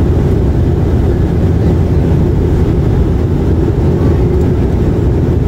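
Steady low rumble of an airliner's cabin in flight: engine and airflow noise heard from inside the cabin.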